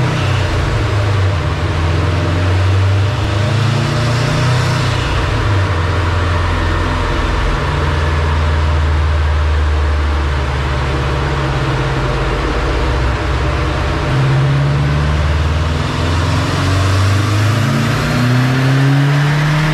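2013 Subaru STI's turbocharged 2.5-litre flat-four engine running on a chassis dyno, its pitch shifting up and down, with revs climbing in the last few seconds.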